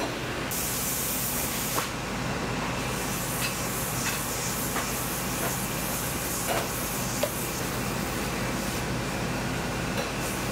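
A steady mechanical drone with a burst of hiss, like a spray or air jet, starting about half a second in and lasting about a second and a half, and a few light clicks scattered over it.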